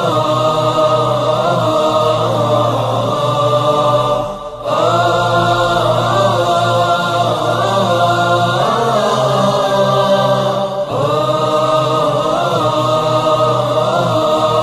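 Islamic background music of layered vocal chant: voices holding long, slowly shifting notes over a steady low drone. The phrases break briefly about four and a half seconds in and again near eleven seconds.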